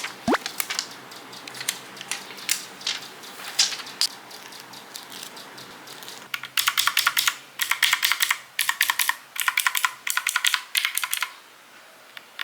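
Typing on a computer keyboard. Scattered keystrokes at first, then fast runs of typing in short bursts from about six seconds in, which stop about a second before the end.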